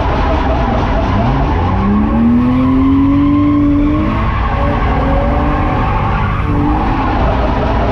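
BMW E30's M50B25 non-VANOS straight-six revving hard through a drift, with tyres squealing. The revs climb over the first few seconds, drop, then climb again near the end.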